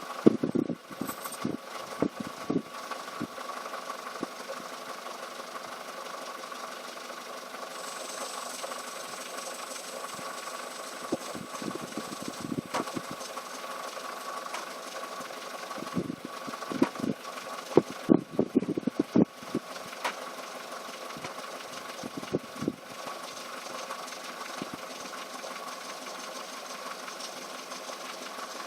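Volkswagen Polo sedan engine idling steadily. Irregular bumps and clicks come near the start and in a cluster about two-thirds of the way through.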